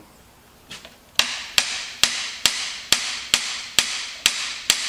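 Hammer tapping steadily on the head gland of a John Deere loader curl hydraulic cylinder, about two taps a second, each with a short metallic ring. The tapping starts about a second in and drives the gland into the barrel past the snap ring, which is held compressed with screwdrivers.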